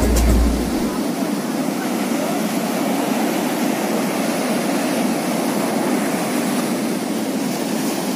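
Ocean surf: waves breaking and washing up the sand, a steady rushing noise.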